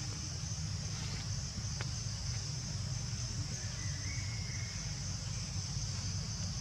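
Steady high-pitched insect chorus droning without a break, over a constant low rumble.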